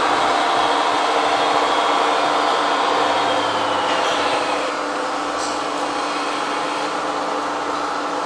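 Small electric motors of radio-controlled model construction machines running with a steady whining hum, a little quieter from about four and a half seconds in.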